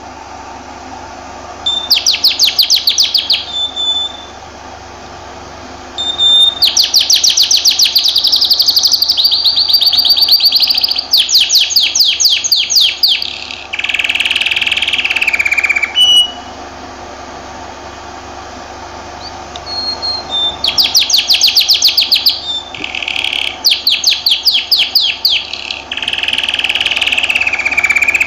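Domestic canary singing: phrases of fast rattling trills and smooth rolls, each lasting a few seconds, with short pauses between them.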